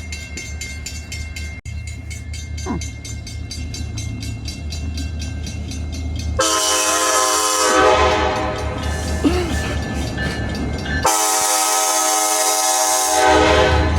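Locomotive approaching with a steady low engine rumble, then sounding its multi-note air horn: a long blast about halfway through, then a second blast near the end. The blasts are the crossing warning.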